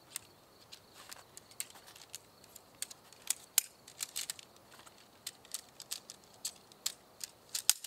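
Sectioned tent poles being pulled apart and folded into a bundle: a run of light, sharp clicks and clinks at irregular intervals.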